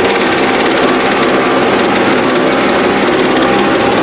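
Small single-stage two-stroke snowblower engine running steadily at full throttle as the machine is pushed through snow.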